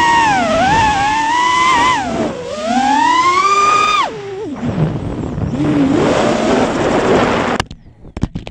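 FPV racing quad's brushless motors whining, heard from its onboard camera, the pitch rising and falling with throttle, climbing for about a second and a half before dropping away sharply around four seconds in. A rough, lower whir follows. Near the end come a few sharp knocks as the quad hits the ground, and the motors stop: an in-flight failure whose cause the pilot could not tell.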